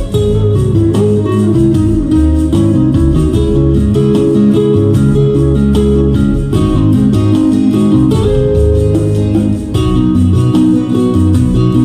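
Guitar-led instrumental music with a bass line and a steady beat.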